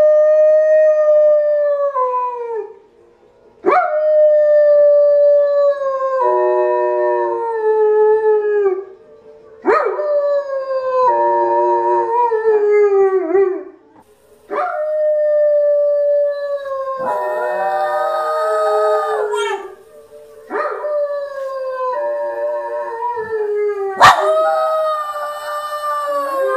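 Dogs howling along with howls from a TV: a German shepherd-type dog, then a shiba inu, each giving long held howls that slide down in pitch at the end, one after another with short breaks, at times two or three voices howling together. A sudden sharp click about 24 seconds in.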